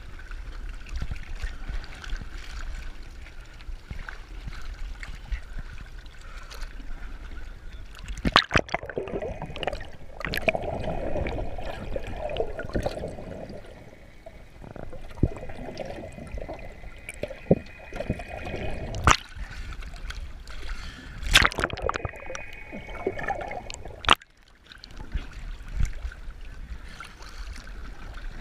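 Seawater sloshing and splashing around a camera at the surface of a floating shark cage, turning to muffled underwater sound when the camera dips below. A few sudden sharp splashes stand out.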